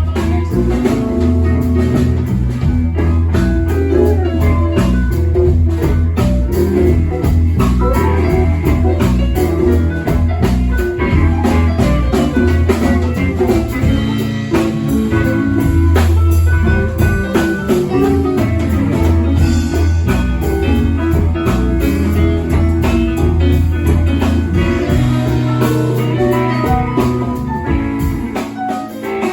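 Live band playing an instrumental passage: guitar over a steady bass line and drum kit.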